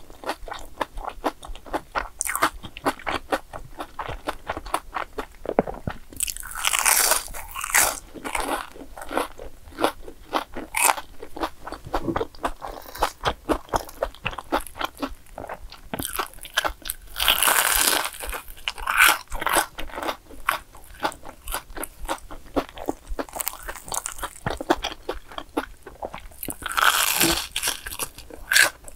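Chewing and crunching of deep-fried, breadcrumb-coated cheese balls and a sugar-coated glutinous-rice twisted doughnut. Louder bursts of crunching come about a quarter of the way in, again around the middle and near the end.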